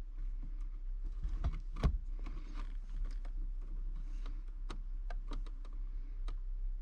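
A hand-held lighter being flicked, giving irregular sharp clicks, amid small handling noises of wires and plastic connectors. A low steady hum runs underneath.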